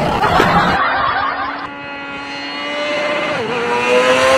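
Wind and road noise rushing for about a second, then a motorcycle engine holding a steady high-pitched note that dips briefly and then slowly rises.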